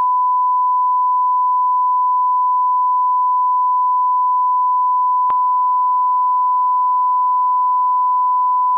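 Steady 1 kHz line-up test tone, a continuous pure beep of the kind that accompanies SMPTE colour bars, with one brief click about five seconds in.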